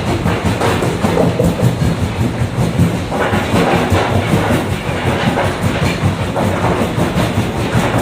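Linear vibrating screen running: a steady mechanical rattle over a low hum.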